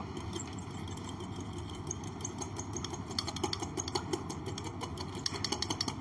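Metal utensil stirring a drink in a stemmed glass: quick light clinks of metal against glass, thickest in the second half, over a steady background hum.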